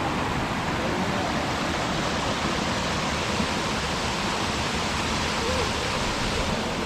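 Waterfall pouring, a steady rushing noise that holds at one level throughout.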